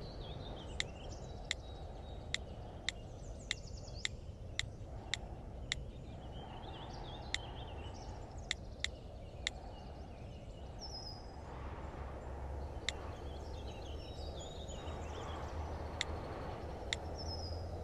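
Outdoor background with birds chirping now and then, and a series of sharp clicks: about two a second for the first six seconds, then scattered.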